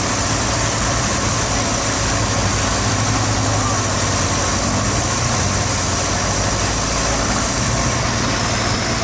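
Boat engine running steadily, a constant low hum under a broad rushing noise.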